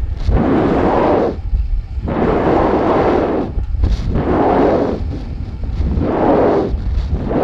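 Wind buffeting the microphone of a camera riding on a high-altitude weather balloon payload. It is a loud rush with a low rumble, rising and falling in repeated swells about once every second and a half.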